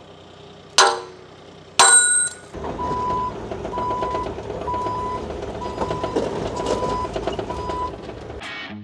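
Two ringing hammer blows on steel, about a second apart, at the bucket pin of a Bobcat mini excavator. Then the Bobcat E35's diesel engine runs and its travel alarm beeps six times, about one beep a second, as the machine moves, all cutting off abruptly just before the end.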